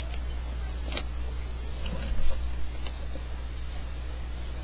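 Sheet of paper being folded and creased by hand: short crinkles and a sharp crease click about a second in, with more rustling around two seconds, over a steady low electrical hum.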